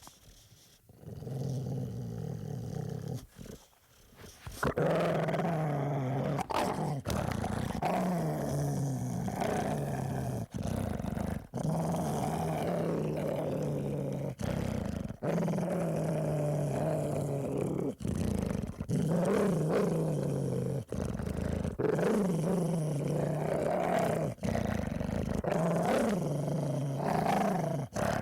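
A dog growling in long, low, continuous rumbles broken by brief gaps, quieter for the first few seconds and louder from about five seconds in.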